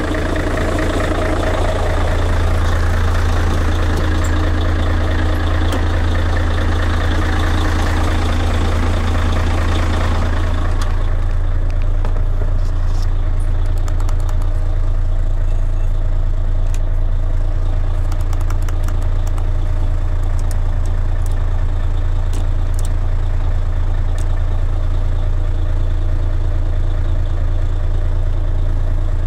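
Mercedes-Benz Actros 1843's V6 diesel engine idling steadily, warming up after its first start, with a deep, even hum. About ten seconds in it turns duller as it is heard from inside the cab.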